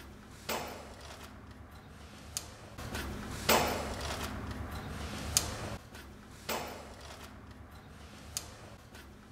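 Hands working wires into the terminals of a plastic modular breaker panel: sharp clicks and knocks of plastic and wire every second or two, with a few louder knocks, over a faint low hum.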